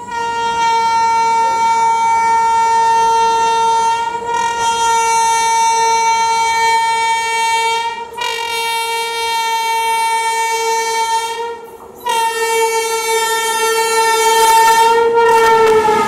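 WAP-7 electric locomotive's horn blowing in long continuous blasts of about four seconds each with brief breaks between them, as the express approaches at speed. Near the end the horn's pitch drops slightly and the rush of the train passing builds underneath.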